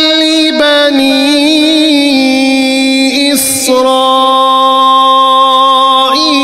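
A man reciting the Quran in the melodic tilawat style, drawing out long held notes with slow ornamental turns. He takes a quick sharp breath about three and a half seconds in, then holds a new, steadier note.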